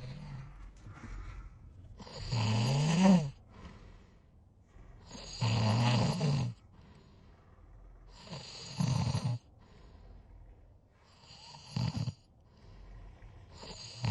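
A sleeping person snoring: four loud snores about three seconds apart, with quieter breaths between. The first snore rises in pitch, and the fourth is shorter than the rest.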